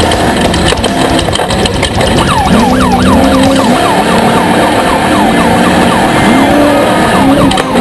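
Off-road race vehicle engines revving, their pitch climbing and dropping over and over in quick cycles over a loud, steady engine noise.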